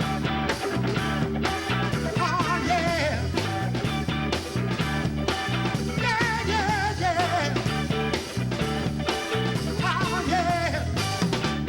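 A rock band playing: a drum kit keeps a steady beat under bass and electric guitar, with a wavering lead melody that comes and goes.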